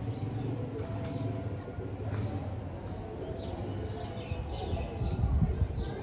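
Outdoor ambience: small birds chirping, a string of short falling calls, over a low rumble that swells about five seconds in.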